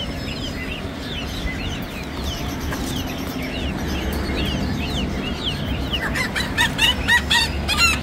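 Chickens calling, with clucking and a rooster crowing, louder and more rapid near the end. Many small caged birds chirp throughout over a steady low hum.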